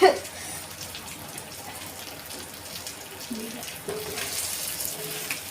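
Hot oil sizzling steadily in a pan of frying fish, the hiss growing stronger near the end. A brief loud burst sounds right at the start.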